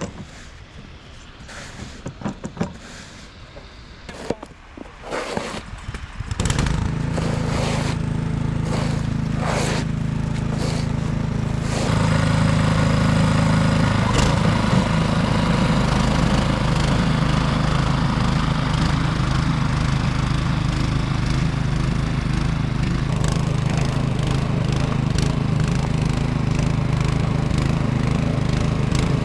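Scrapes and knocks, then about six seconds in a small gasoline engine, most likely a snowblower's, starts and runs steadily, growing louder about twelve seconds in.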